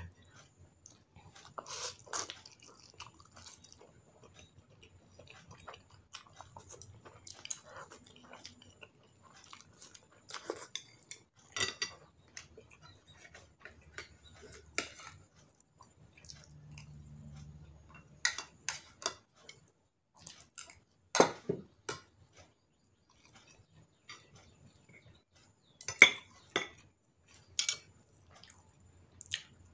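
Spoon and chopsticks clinking and scraping against a ceramic plate and a glass bowl in scattered taps, with quiet chewing in between. The sharpest clinks come in the second half.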